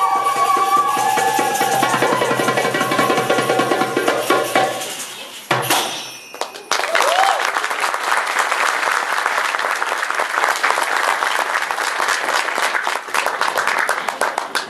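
Middle Eastern percussion played live, with doumbek, frame drum and finger cymbals under a melody, dying away about five seconds in. After a short pause audience applause starts and continues to the end.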